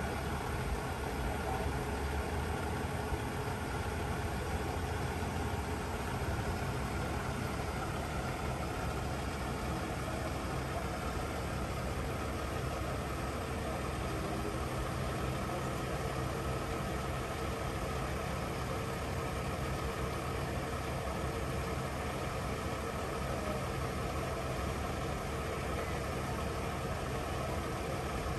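Scania P260 truck's diesel engine running steadily with an even, low hum while it drives the hydraulics of its truck-mounted Fassi crane during a lift.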